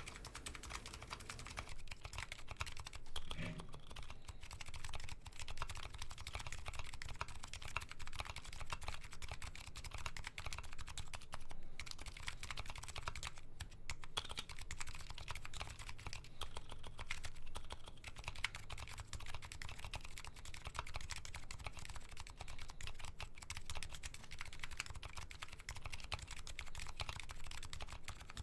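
Continuous fast typing on a Nuxros Kraze custom keyboard with MetaKeebs MetaPulse electrocapacitive switches and DCS Sleeper keycaps: a dense, steady stream of keystroke clacks.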